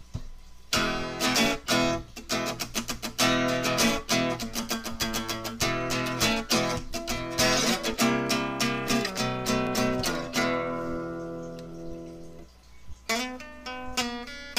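Acoustic guitar music, strummed and picked chords; about ten seconds in one chord is left to ring and fade before the playing starts again.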